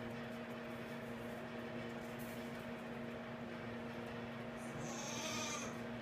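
A newborn fainting goat kid bleats once, high-pitched and about a second long, near the end, over a steady low electrical hum.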